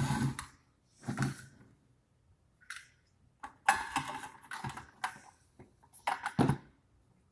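Irregular clicks and clatters of a DeWalt DW745 table saw's plastic fence parts and screws being handled and fitted by hand.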